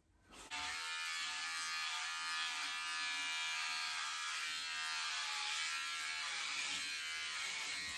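Electric hair clippers buzzing steadily as they cut a man's hair at the back of his head, starting about half a second in.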